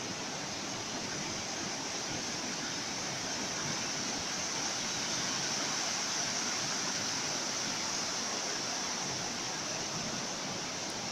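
Ocean surf: a steady rush of breaking waves, swelling a little in the middle and easing again, with no separate crashes standing out.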